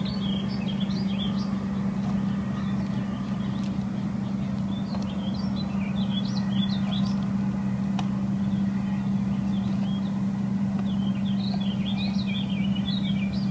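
A steady low mechanical hum, with birds chirping on and off over it.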